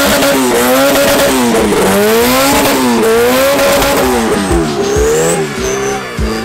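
Car engine revving hard, its pitch climbing and falling again about once a second, over the steady hiss of tires spinning in a burnout. Near the end the revs drop into a few short, quick blips.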